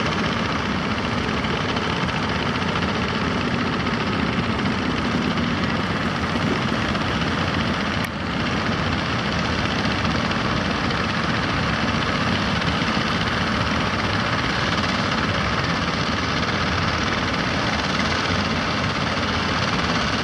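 A fishing boat's engine running steadily, with a brief dip about eight seconds in.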